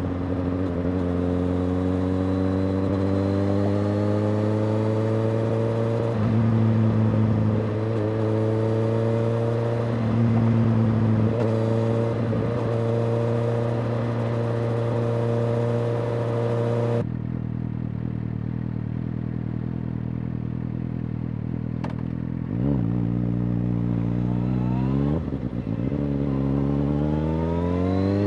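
Suzuki GSX-S750's inline-four engine through a Yoshimura R-77J exhaust, pulling through the gears. The revs climb steadily, then drop and pick up again at several shifts. About two-thirds through, the rushing noise over the engine stops abruptly and the engine runs lower, dips twice, then climbs again near the end.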